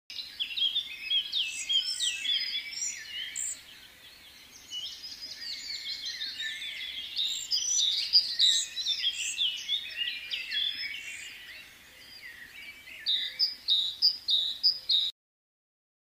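Many small songbirds chirping and twittering together in a dense chorus of quick, high chirps, thinning out briefly twice. Near the end it turns into a run of about three sharp chirps a second, then cuts off abruptly.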